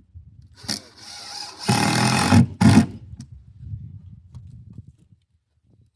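Power drill running in two short bursts, the first a little under a second long and the second brief, driving screws, with scraping and rattling of the work around them.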